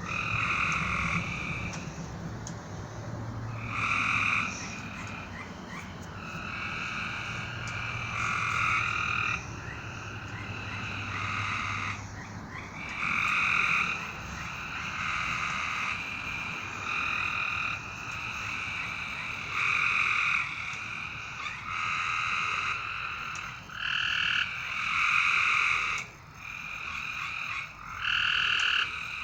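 A chorus of frogs calling, many overlapping calls of about half a second to a second and a half each, one after another with short gaps.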